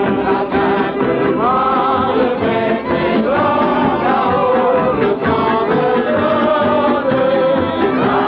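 A man singing a song with a gliding, held melody, accompanied by strummed acoustic guitars and a violin.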